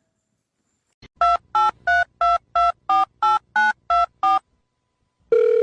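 Telephone keypad tones: ten short two-pitch beeps at about three a second, the sound of a ten-digit number being dialled. A steady telephone tone comes on just before the end.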